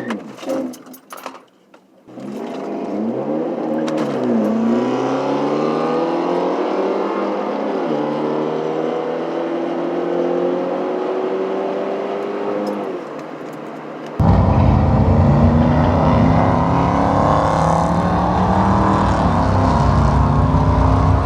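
2013 Ford Fusion with a Cherry Bomb glass-pack exhaust and straight tailpipes accelerating hard down a drag strip. The engine note climbs, drops back at two gear shifts and climbs again, with the tires spinning. A loud low rumble comes in suddenly near the end.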